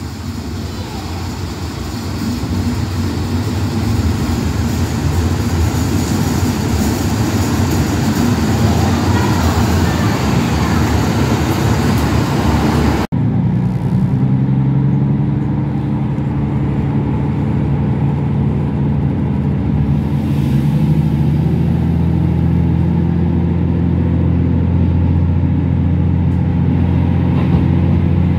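A KiHa 75 diesel railcar running into a station, its noise building. After a sudden cut, the same railcar is heard from just behind the driver's cab, its Cummins diesel engines pulling hard with a steady low hum that slowly rises in pitch as it accelerates.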